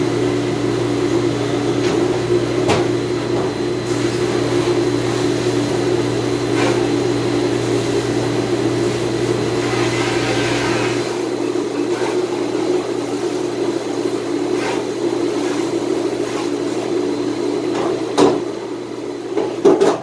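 Steady mechanical hum of a commercial door-type dishwasher running in a dishroom, with a brief rush of water spray about halfway through. A few sharp clanks of dishes or racks come near the end.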